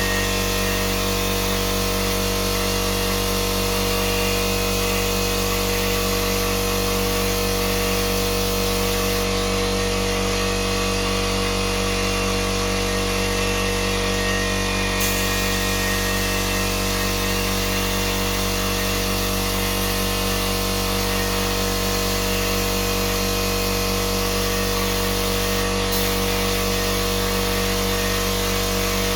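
An electric power tool's motor running steadily and without a break, a constant whir that never changes in level or pitch.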